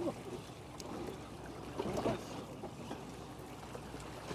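Faint water sloshing and lapping against a boat's hull.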